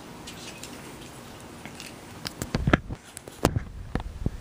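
Close handling noise: a faint hiss, then from about halfway through a series of sharp clicks and knocks from small hard objects being handled close to the microphone.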